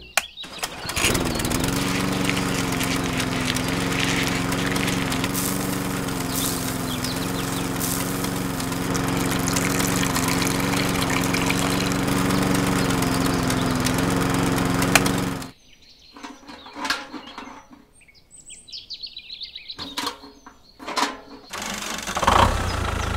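A small single-cylinder engine starts and runs steadily for about fifteen seconds, then cuts off suddenly. Birds chirp in the quieter stretch that follows, and an engine starts running again near the end.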